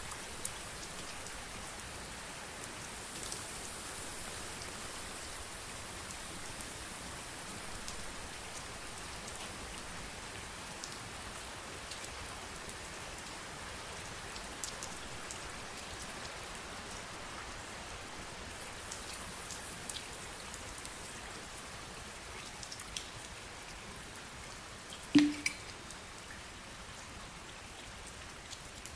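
Steady rain-like pattering and fine crackling from a heap of crumpled plastic wrap, with scattered small ticks. A single sharper knock comes near the end.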